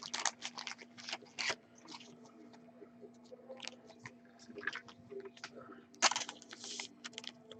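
Hands handling a trading card and clear plastic: light clicks and scratchy rustles, with a longer crinkly rustle about six seconds in.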